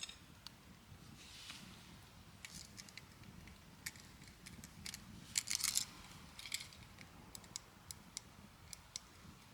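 Scattered small clicks and light clatter, with a short burst of louder clicks about five and a half seconds in.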